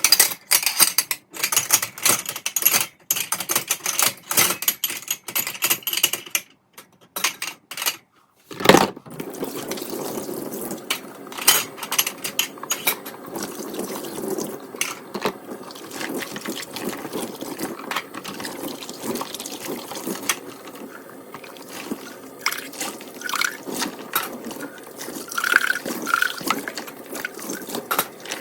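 Dishes and utensils clattering in quick knocks and clinks with short pauses, then, about nine seconds in, a kitchen tap turned on and running steadily into the sink, with occasional clinks of dishes under the water.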